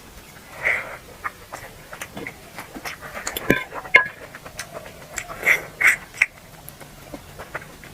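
Close-miked eating sounds of duck curry being chewed: irregular wet mouth clicks and lip smacks, with short squelchy bursts of chewing.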